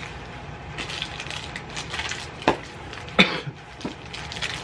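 Items from a subscription box being handled and unpacked: rustling and light clicking, with two sharper knocks about two and a half and three seconds in.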